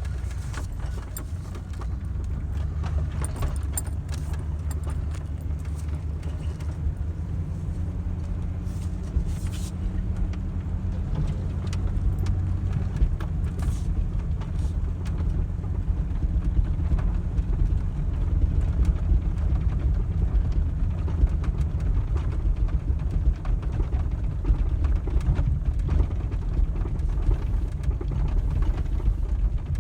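Tractor engine running steadily with a low rumble, growing a little louder after about ten seconds, with scattered clicks and rattles in the first part.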